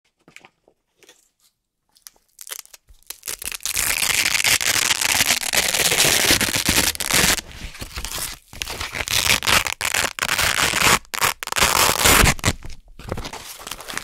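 Hook-and-loop (Velcro) circles pulled apart from a fabric backing close to the microphone: after a couple of seconds of faint ticks, one long crunchy rip lasting several seconds, then a run of shorter rips with brief pauses between them.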